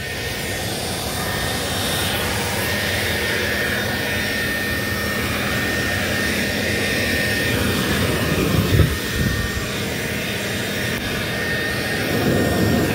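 Walk-behind drum floor sander with 24-grit paper grinding down warped mahogany deck boards: a steady loud motor-and-abrasion drone with a high whine, swelling over the first couple of seconds.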